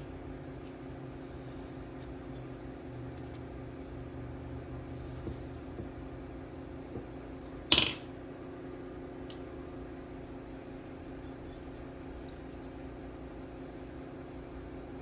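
A steady machine hum with light scattered ticks, and one sharp, loud clink of a hard object a little past halfway.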